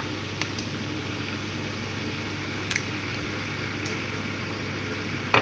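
Steady kitchen background hum and hiss, with a few light clicks and taps.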